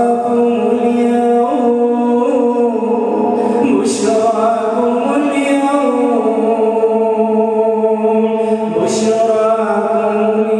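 A male imam reciting the Quran in melodic tajweed style, with long drawn-out notes that step and slide in pitch.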